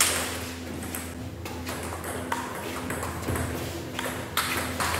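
Table tennis rally: the ball clicking sharply off the bats and bouncing on the table, about one crack a second, over a low steady hum.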